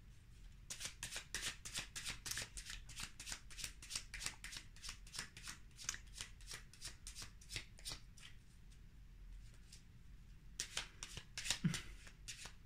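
A deck of cards shuffled by hand: a fast run of soft, papery clicks that stops briefly about ten seconds in, then resumes for a moment.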